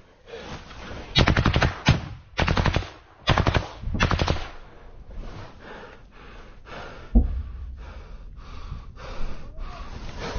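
Automatic gunfire at close range: four rapid bursts in quick succession, then a single loud bang with a low rumble about seven seconds in.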